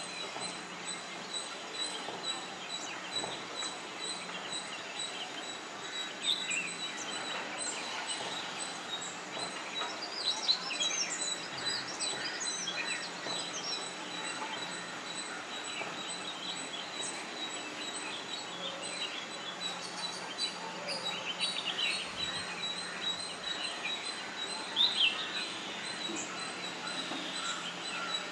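Ring-necked parakeets giving short, scattered chirping calls over a steady background hiss. A cluster of calls comes about ten seconds in, and the loudest calls come around twenty-five seconds in.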